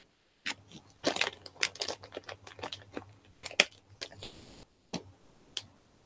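Irregular crackles, clicks and rustling noise over a video-call audio feed, cutting out briefly near the start and again past the middle: the garbled sound of a laggy network connection.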